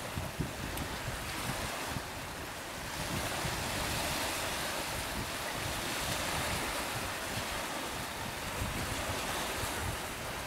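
Strong wind buffeting the microphone in uneven low gusts over the steady hiss of choppy sea and surf. The hiss grows fuller about three seconds in.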